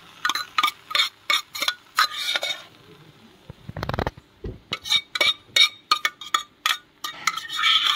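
A steel spoon scrapes and knocks cooked rice out of a black pressure cooker pot into a steel pan: three runs of sharp metal clinks and taps, with one duller thump about halfway through.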